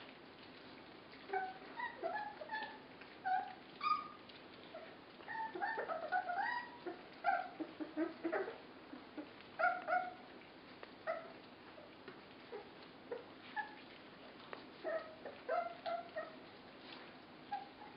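24-day-old Border Collie puppies whimpering and yipping in short, high squeaks while they crowd around a food tray to eat. The calls come in quick clusters, with a quieter stretch a little past the middle.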